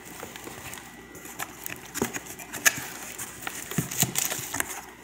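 Cardboard shipping box being opened by hand: flaps and packing rustling, with scattered sharp taps and crackles, the strongest about two seconds in and a cluster near the end.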